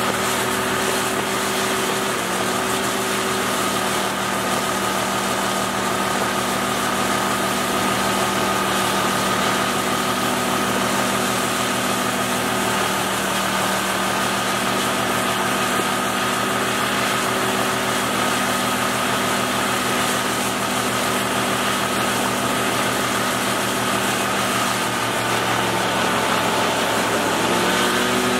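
Outboard boat motor running steadily under way, with a rush of wind and water. Its pitch steps slightly about two seconds in and rises near the end.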